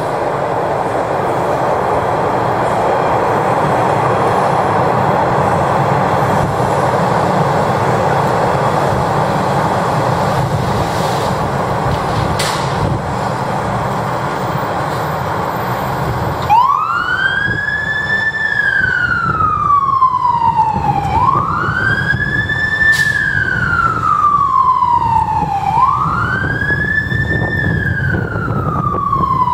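A fire engine's diesel engine running loudly as it pulls out, then about halfway its siren comes on in a wail, sweeping up quickly and sliding slowly back down about every four and a half seconds.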